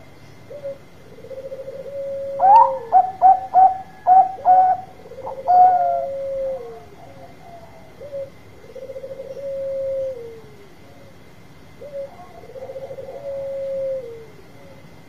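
Zebra dove (Bangkok-type perkutut) cooing: several purring coos, each dropping in pitch at its end, with a run of several short, sharp, loud notes a few seconds in.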